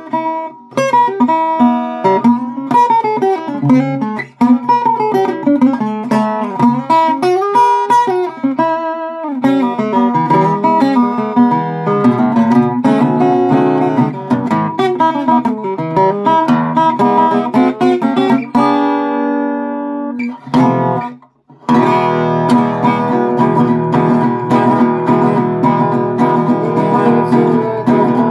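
A six-string rosewood acoustic guitar being played solo. It opens with picked single-note runs, then strummed chords, a brief break about twenty-one seconds in, and steady strumming through the end.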